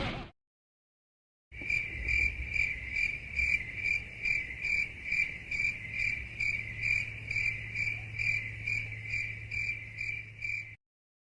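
Crickets chirping in an even pulsing rhythm, about two or three chirps a second, starting after a second and a half of silence and stopping just before the end. This is the familiar 'crickets' awkward-silence meme sound effect.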